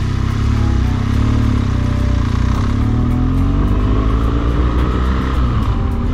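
BMW adventure motorcycle's engine running under way on a gravel road, its pitch rising twice as it accelerates, over a steady low rumble.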